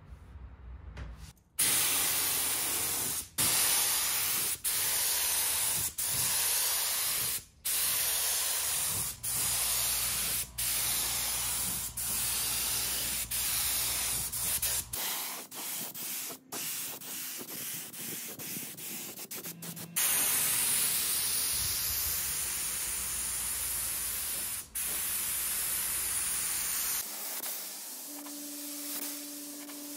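Gravity-feed spray gun hissing as it sprays a dark finish onto wood in repeated passes, the hiss breaking off briefly every second or two between strokes. Near the end it gives way to a quieter steady hum.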